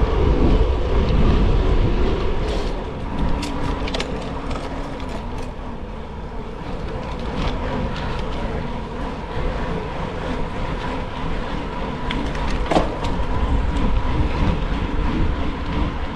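Gravel bike rolling over a loose gravel road: steady tyre and wind rumble on the microphone, with scattered clicks of stones and rattles, most of them in the first few seconds.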